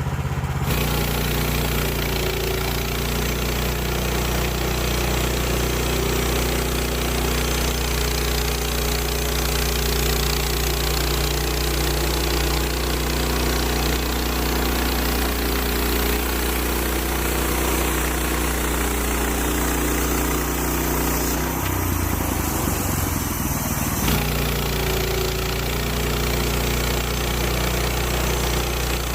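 Gasoline engine of a Woodland Mills HM130 bandsaw mill running steadily while its band blade saws through a red oak log. For about two seconds near the end, the low engine note wavers.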